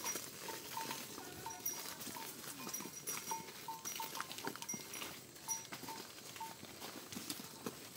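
Water buffaloes walking on a stony, leaf-covered forest trail: faint irregular hoof steps and rustling, with short high notes repeating irregularly throughout.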